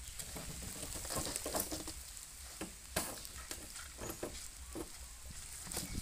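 A young Asian elephant shuffling on damp earth while swinging a tire in her trunk: irregular light clicks, scuffs and crackling, a few a second.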